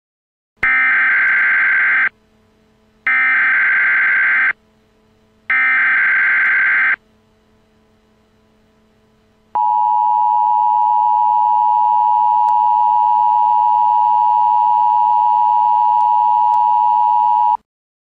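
Emergency Alert System tones: three identical harsh digital data bursts of the SAME header, each about a second and a half long, then after a short pause the steady two-tone EAS attention signal held for about eight seconds.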